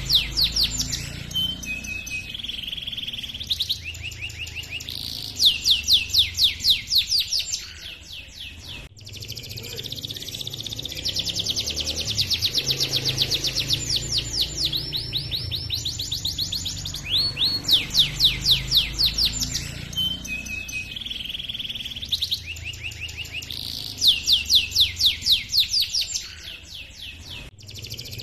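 Domestic canary singing a long rolling song: phrases of rapid, evenly repeated high trills and quick chirps, each lasting a few seconds, with short pauses between them.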